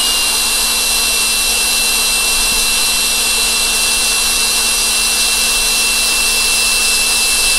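20-volt cordless drill running steadily at speed with a high, even whine, drilling the head off a die-cast metal rivet in a toy car's baseplate.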